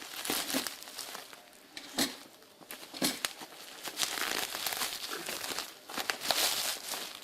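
Packaging crinkling and rustling as it is unwrapped by hand, with a few sharp clicks and a longer stretch of dense crinkling in the second half.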